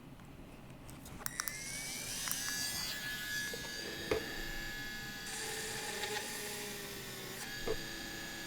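Cordless micro rotary carving tool with a small round dental burr, switched on with a click about a second in and spinning up to a steady high whine, drilling holes into unfired metal clay (greenware). The pitch wavers a little as the burr bears on the clay, with a few light knocks.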